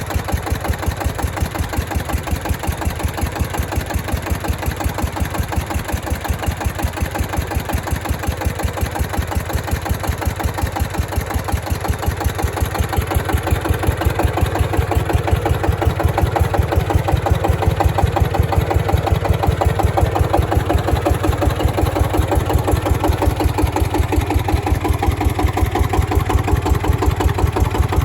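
SD1110 single-cylinder diesel engine of a homemade 5 kW generator running steadily at about 1200 rpm, an even, fast chug of firing strokes. It grows somewhat louder about halfway through.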